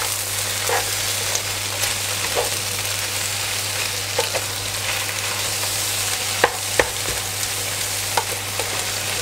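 Spinach and egg stir-frying in a hot wok: a steady oil sizzle, with a wooden spatula scraping and tossing the leaves and knocking now and then against the pan. The two sharpest knocks come about six and a half seconds in.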